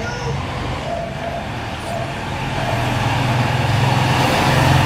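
A motor vehicle's engine passing by: a low hum that builds up from about two seconds in and is loudest near the end.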